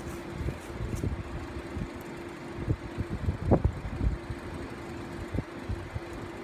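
Honeybees from an opened package buzzing: a steady hum that drops out briefly about halfway through, with wind gusting and knocking on the microphone.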